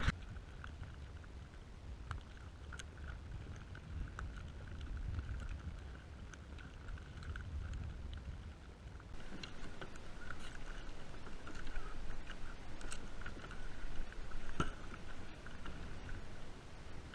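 Small waves lapping against a kayak's hull, with a low wind rumble on the microphone. Scattered light clicks and taps come from handling gear, busier in the second half.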